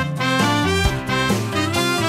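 Background music: an instrumental tune.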